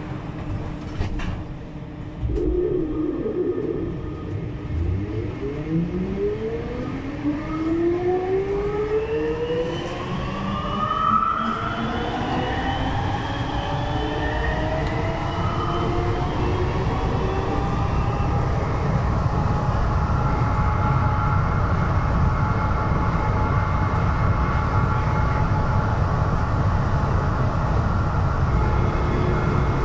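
Siemens VAL 208 rubber-tyred automatic metro train pulling away from a standstill: the traction whine rises in several pitches together for about fifteen seconds as it accelerates, then holds steady over a low running rumble as it cruises through the tunnel, heard from inside the front car.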